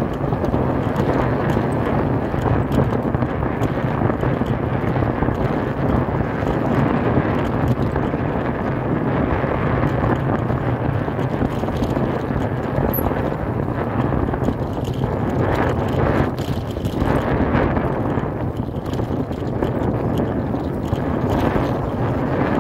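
Mountain bike riding over a dirt trail: a continuous rumble and rattle of tyres and frame over the rough ground, with wind buffeting the microphone.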